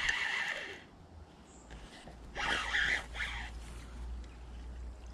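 A large pike thrashing at the surface while being played in close to the bank: two bursts of splashing, the first right at the start and the second about two and a half seconds in.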